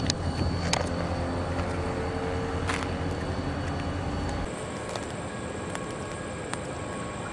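A vehicle engine running with a steady low hum, which cuts off abruptly about four and a half seconds in, leaving a quieter steady background with a faint high whine.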